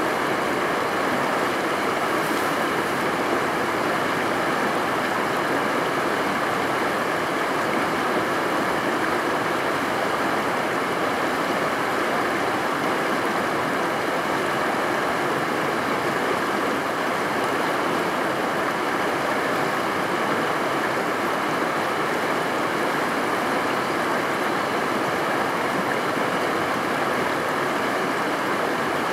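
A stream rushing steadily, an even wash of water noise without pause.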